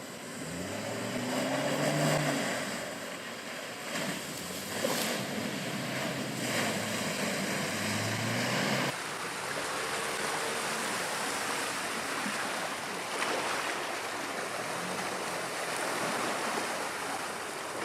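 Land Rover Defender engine running off-road, its note rising and falling with the throttle over a heavy rushing noise. About nine seconds in the sound cuts abruptly to a steadier rushing noise with the engine fainter.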